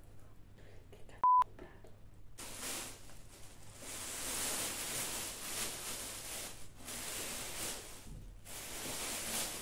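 A single short electronic beep, one steady pure tone, about a second in. Then, from about two seconds in, continuous rustling of plastic packaging as the vacuum cleaner's parts are unpacked, pausing briefly twice.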